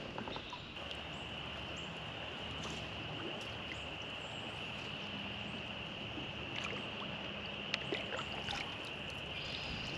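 Steady rush of flowing creek water around a drifting kayak, with a few faint clicks in the second half.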